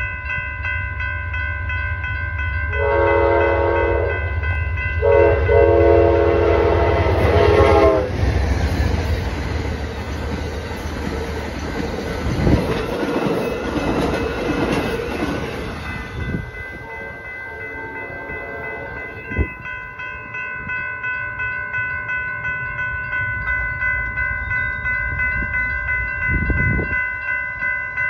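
Amtrak Coast Starlight passenger train sounding two long horn blasts, the second longer, then passing at speed with rushing wheel noise and clatter over the rails. Railroad crossing bells ring steadily throughout and keep ringing after the train has gone.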